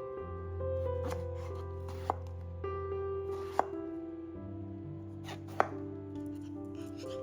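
A kitchen knife cutting down onto a cutting board: three sharp, well-spaced knocks with a few fainter cuts between them, over soft instrumental background music.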